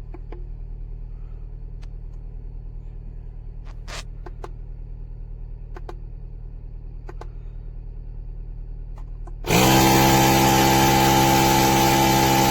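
A low steady hum with a few light clicks, then, about nine and a half seconds in, the Inzeetor 12V portable tire inflator's compressor switches on with a loud, steady, buzzing drone and runs until near the end.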